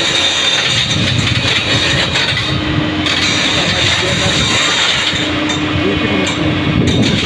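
JCB NXT crawler excavator's diesel engine running steadily under load as the machine moves on the trailer, with a steady tone coming in twice, briefly.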